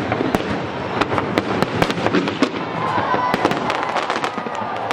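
Aerial fireworks exploding in a rapid, dense barrage of bangs and crackles.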